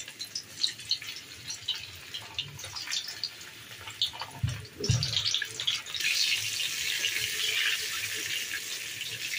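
Pieces of steamed gram-flour badi deep-frying in hot oil in a kadhai: a crackling sizzle of many small pops, which grows denser and louder about six seconds in. Two low thumps come about halfway through.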